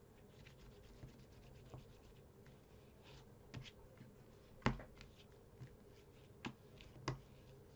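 Paper being burnished down onto cardstock with a handheld burnishing tool: a quick run of faint scratchy rubbing strokes, then four sharp knocks in the second half, the loudest about halfway through.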